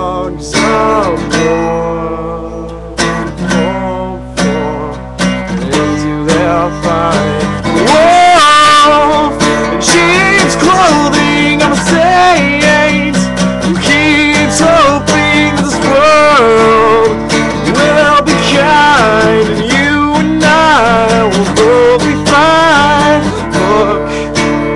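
Acoustic guitar strummed in a steady rhythm while a man sings over it. The voice grows louder about eight seconds in, with long held, wavering notes.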